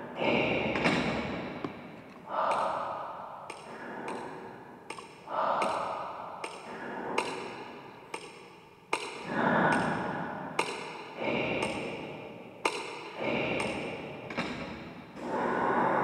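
An uneven run of sharp knocks and taps, roughly one or two a second; several are followed by a ringing tone that fades over a second or two.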